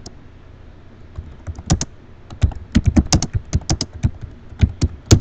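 Typing on a computer keyboard: a quick, uneven run of key clicks starting about a second in, with the loudest stroke near the end.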